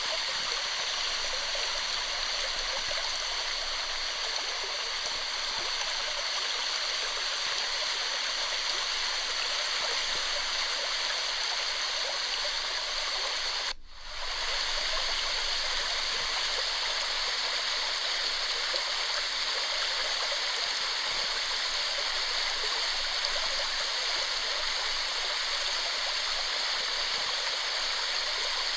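Waterfall, water falling and rushing in a steady hiss. Just before halfway through it drops out for a split second, then resumes.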